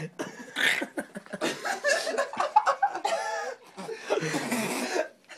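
People laughing and chuckling.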